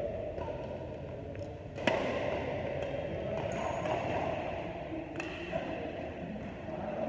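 Badminton racket strings hitting a shuttlecock: a sharp crack about two seconds in and another a little after five seconds, with lighter taps between them.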